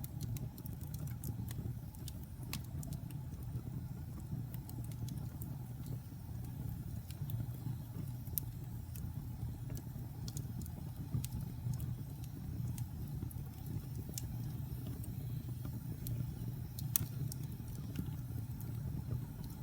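Wood fire burning in a fireplace: a steady low rumble of flames with scattered sharp crackles and pops from the burning logs, one louder pop near the end.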